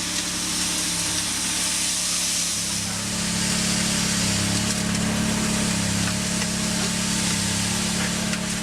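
Engine of heavy construction machinery running steadily under a strong hiss; the engine note shifts slightly about two and a half seconds in.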